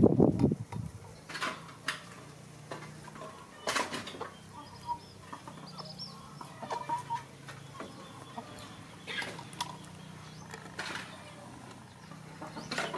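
Light clicks and taps of a metal spoon and wooden chopsticks against a ceramic bowl while a young monkey is hand-fed noodles. A short, louder rustle comes right at the start, and faint clucking or chirping bird calls sound in the background.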